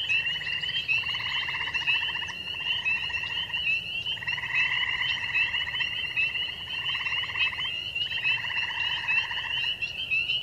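Spring frog chorus of spring peepers and western chorus frogs: a dense, steady stream of high, short peeps, overlaid by pulsed, rasping trills about a second long that follow one another with brief gaps.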